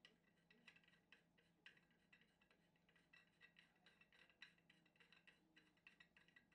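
Near silence, with faint, quick metallic ticking from a steel hex bolt being turned by hand into a freshly tapped thread in a metal plate.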